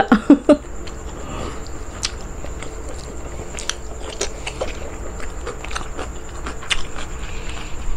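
Close-miked chewing and mouth sounds of someone eating boiled banana heart: irregular small wet clicks and smacks.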